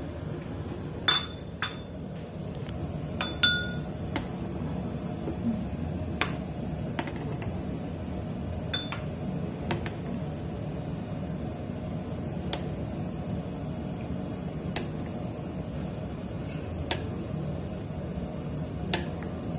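Sharp clinks of a ceramic spoon and crockery against a metal pot, a cluster of ringing ones in the first few seconds and fainter single ticks spread through the rest, over a steady low hum.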